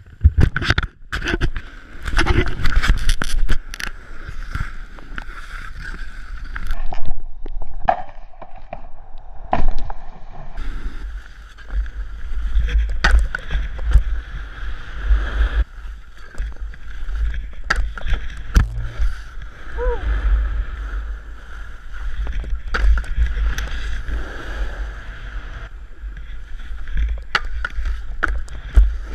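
Snowboard sliding down a groomed run: the board's edges hissing and scraping on the snow under a steady low rumble of wind buffeting the microphone. Sharp knocks and clicks break in repeatedly, most thickly in the first few seconds.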